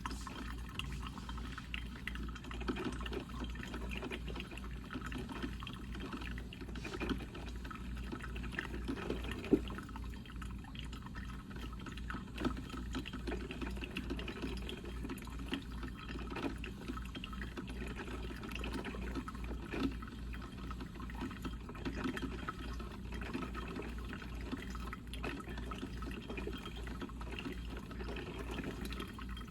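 Coffee percolator perking: water gurgling and bubbling with many small irregular pops, over a steady low hum.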